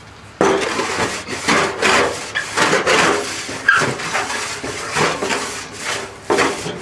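Wooden birdhouse rubbed back and forth against an old fender, scrubbing strokes about twice a second that start suddenly about half a second in.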